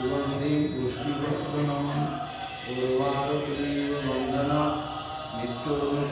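Devotional chanting sung as a melody, the voice rising and falling with short breaks between phrases, over steady jingling percussion.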